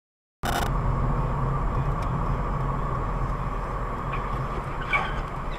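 Steady engine and road noise of a moving car, as picked up by a dashcam inside it, starting abruptly about half a second in.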